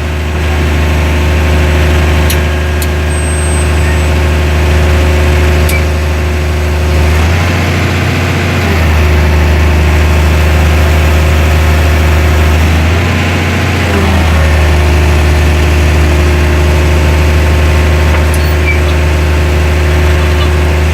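Heavy equipment's engine running steadily and loudly, its low hum shifting briefly twice, about seven and thirteen seconds in.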